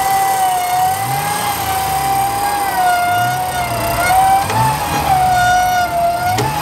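WARN electric winch motor whining steadily as it winds in cable under load, its pitch wavering slightly as the pull changes.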